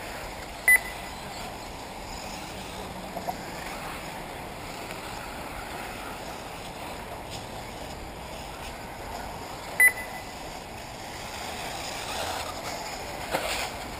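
Two short, sharp electronic beeps about nine seconds apart over a steady background hiss, with a small click near the end.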